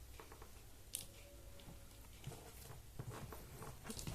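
Quiet room with a low steady hum and faint scattered taps and rustles, like something small being handled, with a few slightly louder ticks about a second in and near the end.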